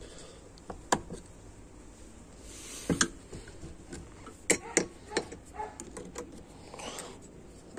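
Snap ring pliers and a steel snap ring clicking and clinking against an A604/41TE transmission input drum as the ring is worked into its groove, with the drum's spring held compressed. Scattered sharp metallic clicks, several in quick succession near the middle.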